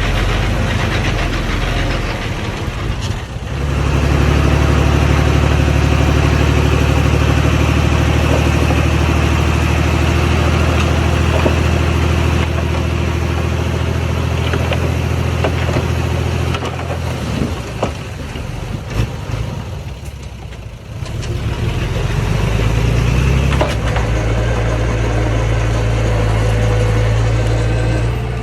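Diesel engine of earthmoving machinery working under load. It picks up about three and a half seconds in and holds steady, eases off for a few seconds past the middle, then picks up again and holds.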